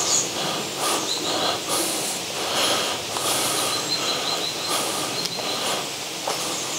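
Footsteps on leaf litter and broken debris, about one step a second, against steady outdoor background noise.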